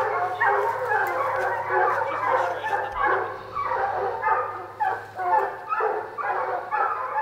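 A pack of bear hounds baying and bawling on a running track, many voices overlapping almost without a break. They are trailing a bear that has not yet treed.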